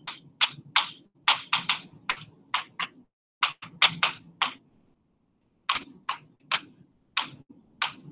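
Handwriting on a board: a writing tip making short, scratchy strokes and taps in quick runs as words are written out, with a pause of about a second past the middle.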